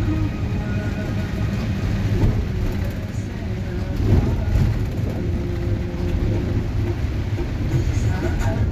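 Heavy rain falling with a steady low rumble of vehicle traffic.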